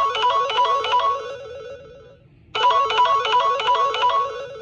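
Samsung Galaxy J3 (2017) ringtone playing: a short melody of quick, bright notes that fades out and starts over about two and a half seconds in.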